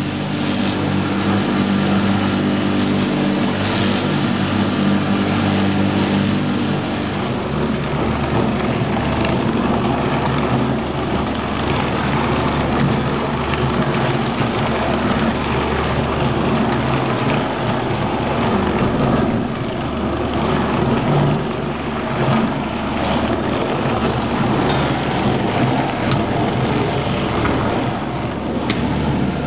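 Mainca CM-41 bowl cutter running, its knives spinning through meat paste in the turning bowl: a loud, steady machine whir whose tone changes about seven seconds in.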